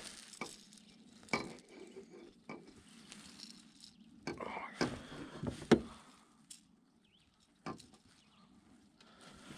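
Scattered clicks, knocks and rustles as a lure is worked out of a northern pike's mouth in a rubber-mesh landing net, with a sharp knock a little past halfway.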